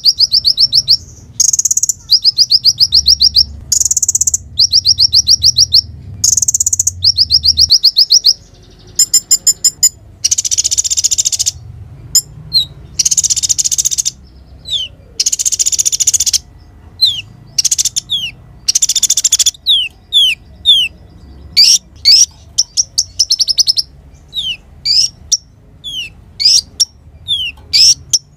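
Konin sunbird singing a lively, high-pitched song. For the first eight seconds it repeats rapid trilled phrases about a second long. Harsher buzzy bursts follow, then quick series of short, sharp downward-slurred chirps.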